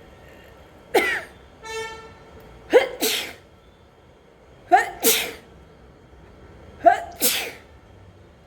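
A person sneezing four times in a row, about every two seconds, each a short voiced 'ah' snapping into a noisy 'choo'. There is a brief high-pitched vocal squeak after the first. The sneezes are set off by snuffed sneezing powder.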